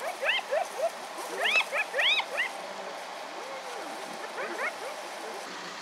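Spotted hyenas giggling and squealing in short yelps that rise and fall in pitch, in a quick flurry over the first two and a half seconds and a few more about four and a half seconds in.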